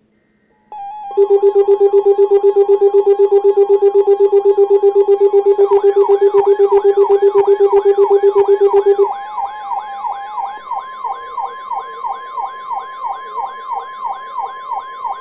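Several weather-alert radio alarms sounding at once. A loud rapid pulsing beep and a steady tone start under a second in, and the beep stops about nine seconds in. A siren-like whoop, rising two to three times a second, joins about halfway and carries on beside a steady alert tone.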